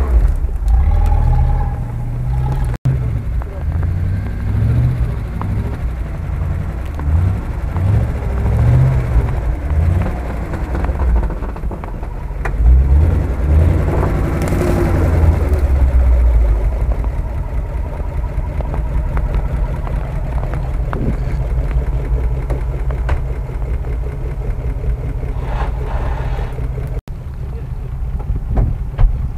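Off-road 4x4 engines revving unevenly under load as the vehicles claw up a snowy slope, the engine note rising and falling, then running more steadily in the second half.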